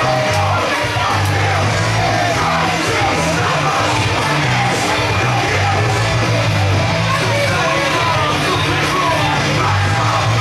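Rock music with a steady bass line playing loudly through a wrestling hall, with people in the crowd yelling over it.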